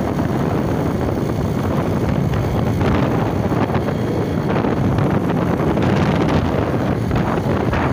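Steady wind rush over the microphone while a Bajaj Pulsar 150 motorcycle is ridden at an even speed, with the bike's running and road noise underneath.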